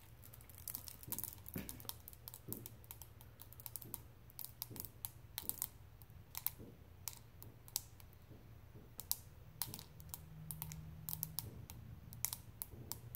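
Desiccant beads crackling and popping in a plastic cup as water soaks into them: small sharp pops at an irregular pace, several a second. It is the sound of the beads cracking apart as they become saturated.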